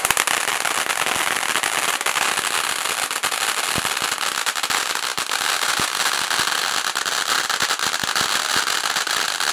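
Star-shaped ground fountain firework spraying sparks with a steady hiss, peppered throughout with many sharp crackling pops.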